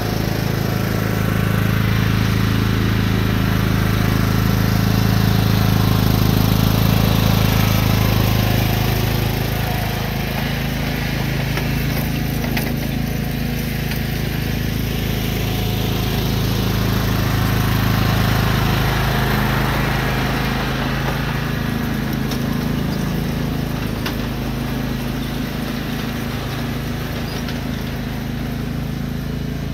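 John Deere riding lawn tractor's engine running steadily as it tows a lawn aerator across the grass. It grows louder as the tractor passes close, fades as it moves away, then swells again as it comes back.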